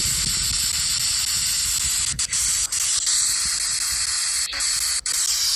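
Spirit box app scanning through radio static: a steady loud hiss, cut by several very short dropouts as it skips between frequencies, with a faint steady tone held for about two seconds past the middle.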